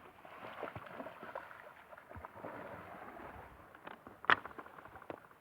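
Small waves lapping and sloshing at a stony lakeshore, with scattered clicks and one sharp knock about four seconds in.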